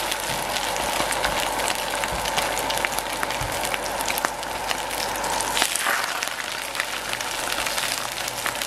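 Salmon fillets sizzling as they sear in a hot stainless-steel pan on an induction burner: a steady frying hiss dotted with many small pops and crackles. The sizzle changes slightly about six seconds in.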